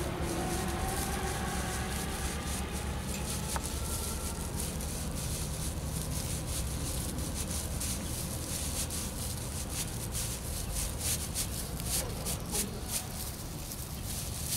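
Plastic hedge strands rustling and clicking as they are pushed through the wire diamonds of a chain-link fence, in quick irregular scrapes that become more frequent in the second half, over a steady low hum.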